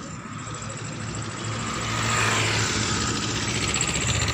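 An engine running steadily nearby, growing louder about two seconds in.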